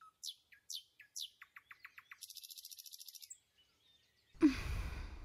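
Small birds chirping: a few short falling chirps, then a quick run of notes and a fast high trill. Near the end a sudden, louder rush of noise cuts in.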